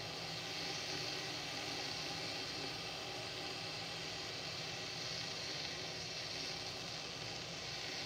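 Glass electric kettle heating water: a steady hiss as small bubbles form on the hot base and rise, the stage before a rolling boil.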